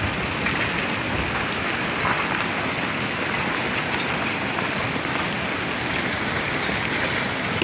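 Steady rushing noise of rockfall debris still pouring down the mountainside, with a few faint sharper knocks of stones among it.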